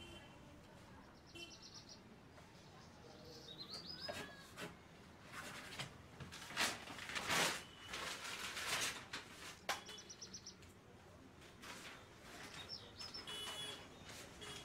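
Small birds chirping in short, high calls now and then, with a stretch of paper rustling as book pages are turned in the middle, the loudest sound.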